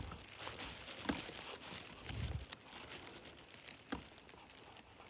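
Faint scattered clicks and rustling, with a soft low thump about two seconds in.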